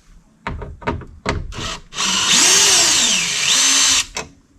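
A few knocks of handling, then a cordless power driver runs for about two seconds, its motor pitch rising, dropping and then holding steady before it stops suddenly.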